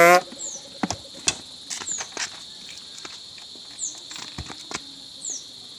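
Scattered clicks and knocks from handling a motorcycle's seat and fuel-tank area, over a steady high insect drone with several short high downward chirps.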